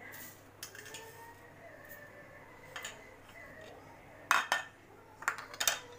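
A spoon and dishes clinking and knocking against an aluminium pressure cooker as spices are spooned in. There are a few separate clinks, the loudest a little past four seconds in.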